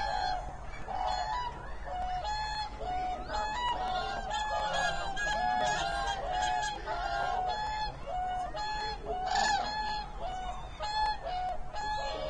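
A large flock of wild waterbirds calling all at once: many short, clear calls overlapping, several a second, without a break.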